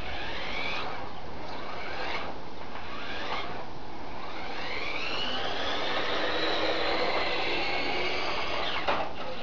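Nikko Lazer 3 radio-controlled toy car's electric motor and gears whining as it drives over a concrete floor, the pitch rising and falling with the throttle. A short knock near the end.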